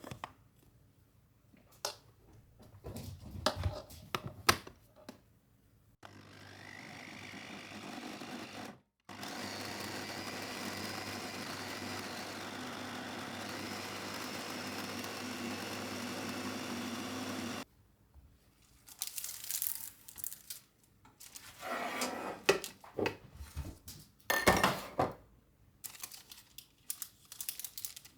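Clicks and handling clatter, then a small electric motor running steadily for about ten seconds, rising in pitch as it spins up and stopping abruptly, followed by more clatter.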